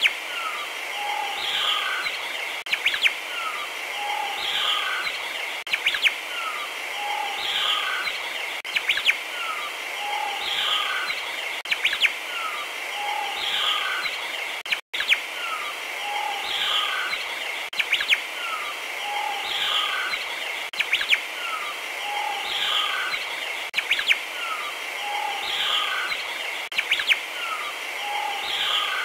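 Looped recording of jungle ambience: bird chirps and whistles over a steady high hiss, the same few-second pattern repeating about every three seconds, with a split-second dropout midway.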